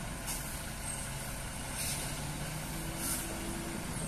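Heavily loaded multi-axle lorry's diesel engine running steadily at low speed as it crawls around a hairpin bend, with three short air hisses from its brakes.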